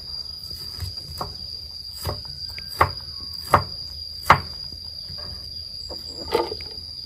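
Knife slicing through a peeled bamboo shoot, a sharp click with each cut, four loud cuts coming about two-thirds of a second apart in the middle, over the steady high-pitched drone of insects.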